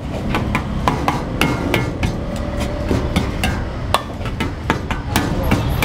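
A metal ladle clanging and scraping against a large steel wok full of egg fried rice, tossing in the just-added spices and soy sauce. The knocks come quick and irregular over a steady low rumble.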